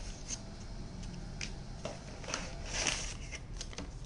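Cardboard box and paper packaging being handled: scattered light rustles, taps and clicks, with a longer rustle about three seconds in.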